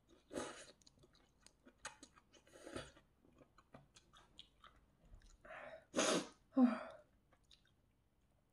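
Close-up eating sounds: chewing with many small mouth clicks, broken by a few louder bursts, the loudest about six seconds in.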